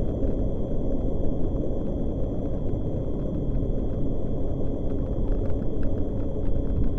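Steady low rumble of wind and road noise on a bicycle-mounted camera's microphone while riding.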